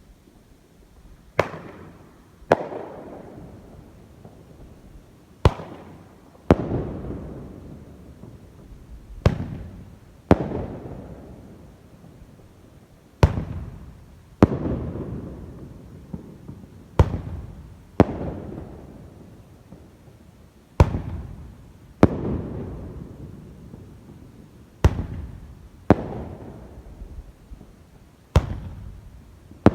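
Consumer aerial fireworks going off: sharp bangs, mostly in pairs about a second apart every three to four seconds, each followed by a long, fading echo.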